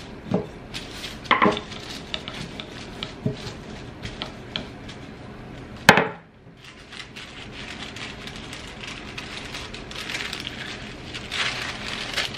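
Wooden rolling pin working over tortilla dough pressed between sheets of wax paper on a wooden table, with a few light knocks. About six seconds in comes one sharp knock, the loudest sound, as the pin is set down on the table. Near the end the wax paper crinkles as it is peeled back.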